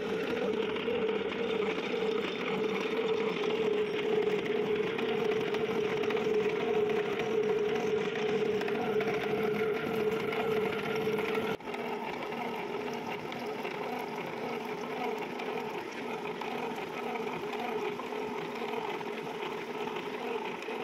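Milling machine running, its disc form cutter cutting the thread of a two-start metal worm shaft under flowing coolant: a steady mechanical running sound with one strong steady tone. The level drops slightly and suddenly about halfway through.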